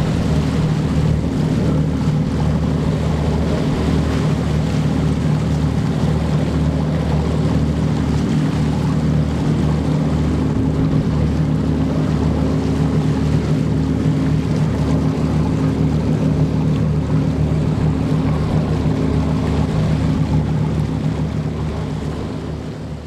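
Motorboat engine running steadily, with wind and water noise over it; the sound fades out near the end.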